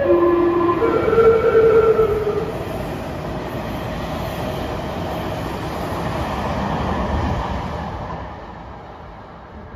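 Meitetsu 1200 series Panorama Super's music horn playing the last notes of a melody cut short partway, only half of it sounded, over the first two and a half seconds. The train then rushes through the station without stopping, its running noise fading near the end.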